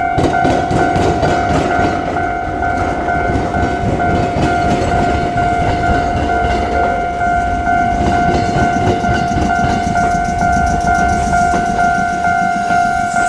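Iyotetsu 700 series electric train rolling slowly across a flat diamond crossing with tram tracks, its wheels rumbling and knocking over the rail joints. A level-crossing warning bell rings steadily and repeatedly throughout.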